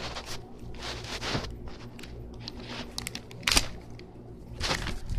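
A surprise bag's packaging being torn open and crinkled by hand, in several short rustles and rips, the loudest about three and a half seconds in.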